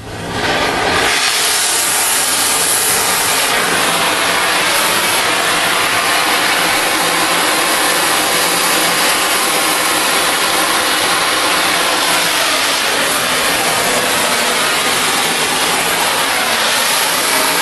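Oxy-fuel cutting torch cutting a thick steel railroad rail: a quiet low flame rumble gives way, about a second in, to the loud, steady hiss of the cutting-oxygen jet going through the steel.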